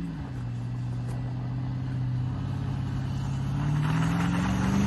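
Toyota Land Cruiser's engine driving through snow: its note drops right at the start, holds low and steady, then rises and grows louder over the last couple of seconds as the driver puts on throttle.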